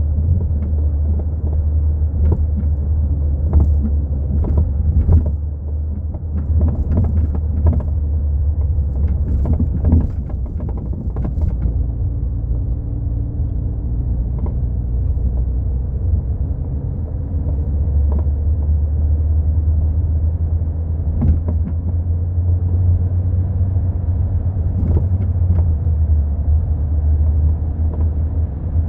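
Volkswagen MK4 Golf driving, with a steady low road and running rumble and scattered sharp knocks, thickest in the first third and again near the end, which the owner puts down to a failing rear shock absorber.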